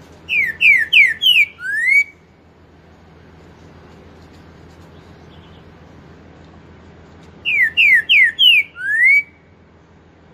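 Green-winged saltator (trinca-ferro) singing the same loud whistled phrase twice, several seconds apart. Each phrase is four quick falling notes followed by one longer rising note: the pantaneiro "4 nota boi" song.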